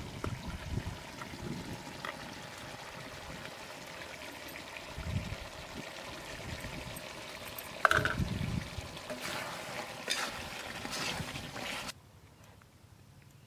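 Chicken curry bubbling and sizzling in an iron karahi over a wood fire, with a metal spatula scraping and clinking against the pan as it is stirred; one sharp clink about eight seconds in. Near the end the sound drops away to a quieter outdoor background.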